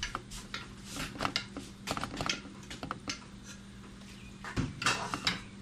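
Irregular light clicks and knocks of a pot and kitchen utensils being handled on a gas stove, a few a second, with a couple of louder knocks near the end.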